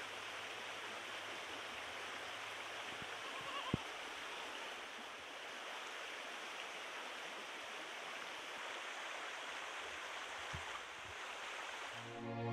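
Steady rushing outdoor noise, with a single sharp click about four seconds in.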